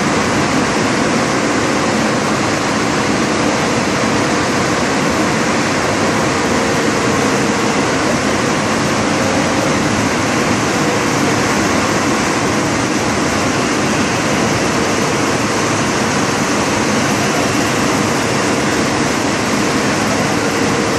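Ten-colour rotogravure printing press running: a loud, steady rush of machine noise with a faint, even hum underneath.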